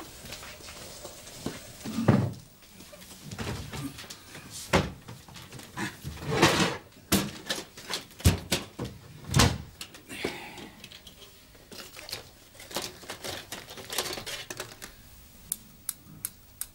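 Objects being handled on a wooden office desk: scattered knocks, thuds and rustling, with a run of quick light clicks near the end.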